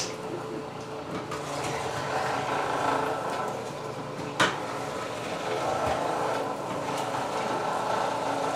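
Kempo hand-crank juicer being turned slowly, grinding and crushing carrots with a steady rasping mechanical noise. Two sharp clicks, one right at the start and one about four and a half seconds in.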